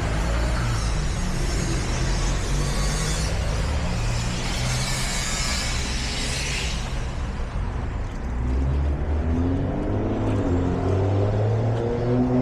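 Street traffic close by: vehicle engines running with a steady low hum, a loud hiss a few seconds in, and an engine pulling away with rising pitch in the second half.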